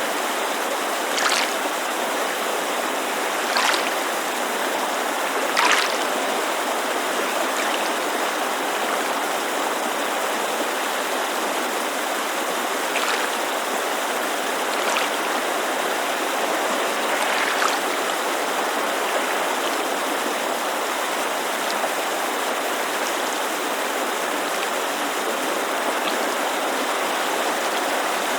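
Steady rushing hiss of a mountain creek, with small splashes of water lapping every few seconds; the most distinct come in the first six seconds.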